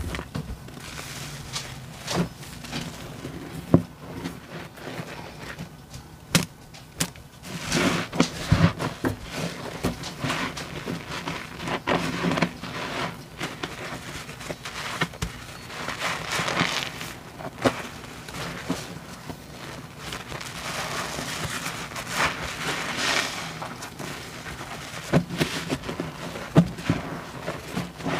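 Soapy sponges squeezed and pressed again and again in a sink full of suds: wet squishing and crackling foam, coming in irregular surges with sharp clicks.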